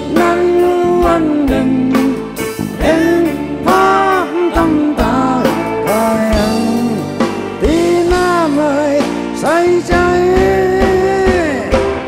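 Live band music: an instrumental song intro with a melodic lead line that bends in pitch, over bass and a steady drum beat.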